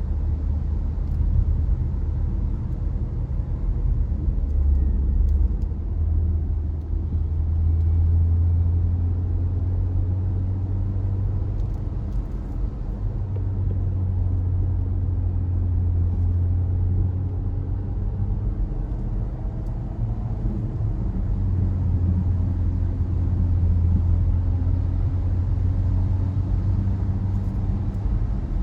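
Car driving along: a steady low rumble of engine and road noise, with the engine's tone drifting slowly up and down.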